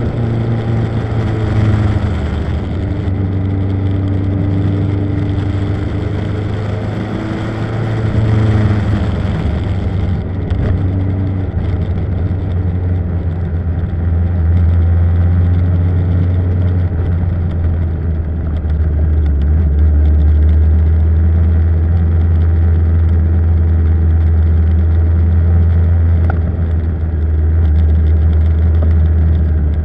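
Motorcycle engine running on the move, its pitch rising and falling with throttle changes in the first ten seconds, then holding a steady low note, under a rush of wind and road noise.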